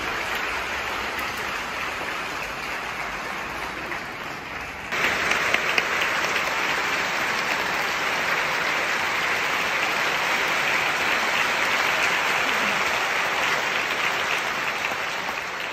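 Concert-hall audience applauding steadily, with a sudden step louder about five seconds in.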